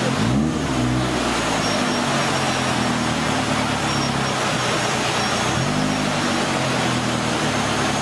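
Engine of a modified off-road 4x4 competition vehicle revving as it wades through river rapids, over the steady rush of fast-flowing water. The revs climb about half a second in and again near the end, and hold steady in between.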